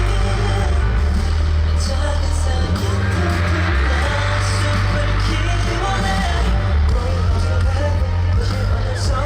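A live K-pop song played loud through concert speakers, with singing over a heavy, steady bass beat.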